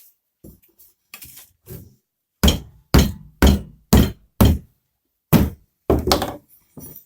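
Hammer blows while forcing the tyre bead over a motorcycle wheel rim: about seven heavy strikes, roughly two a second, starting a couple of seconds in with a short pause before the last few, after some lighter knocks.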